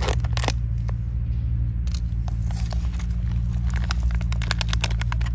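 Rice cake cooking over a camp burner: irregular crackling and spitting over a steady low rumble.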